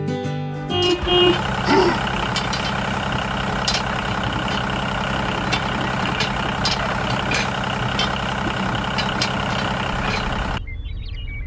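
A motor running steadily, with small clicks and rattles over it. It takes over from guitar music about a second in and drops quieter near the end.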